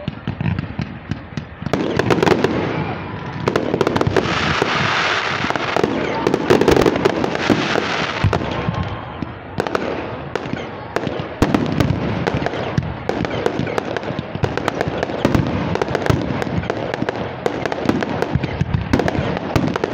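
Fireworks display going off continuously: rapid pops and bangs of bursting shells and crackling stars, with a louder, denser stretch from about four to eight seconds in.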